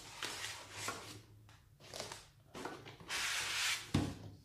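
Foam packing blocks rubbing and scraping against a cardboard box as a packed car head unit is pulled out, in several uneven bursts, the longest about three seconds in, followed by a short knock near the end.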